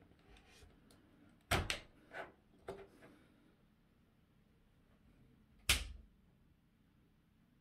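A few sharp handling knocks and clicks: one about a second and a half in, two lighter ones soon after, and the loudest, a thump, near the end.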